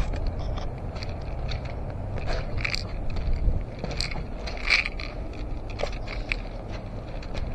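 Footsteps crunching irregularly through dry leaves and brush, over a steady low rumble of wind and handling noise on the action camera's microphone.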